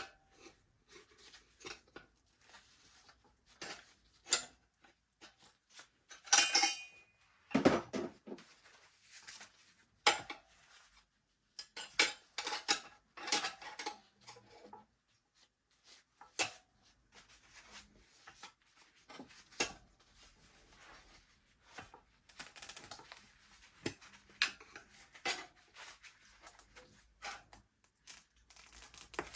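Tire irons clinking and scraping against a dirt bike wheel rim as the tire bead is levered on in small bites, with irregular sharp clicks and short scrapes.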